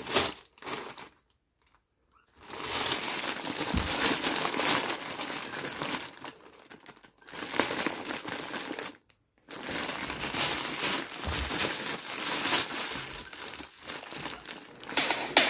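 A clear plastic bag full of loose LEGO bricks crinkling as it is squeezed and turned in the hands, the bricks clicking against each other inside. It stops twice: for about a second early on and briefly a little past halfway.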